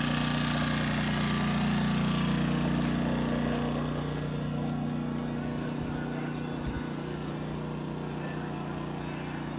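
Portable generators running with a steady engine hum that fades after a few seconds.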